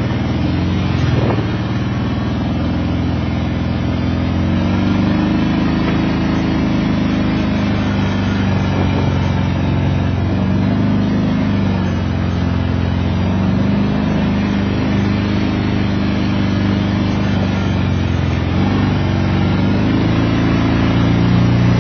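Four-wheeler ATV engine running under way, heard up close from the seat: a steady drone whose pitch rises and falls a little as the throttle changes.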